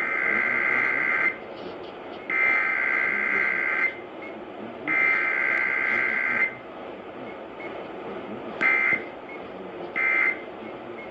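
Emergency Alert System SAME digital data tones on a radio broadcast. Three header bursts of about a second and a half each come with short pauses between them. Then three short end-of-message bursts follow, which mark a required weekly test.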